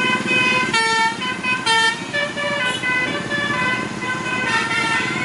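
Tour bus's musical 'telolet' horn playing a tune of short notes that step up and down in pitch, with two louder notes about a second in and near the two-second mark, over a low rumble.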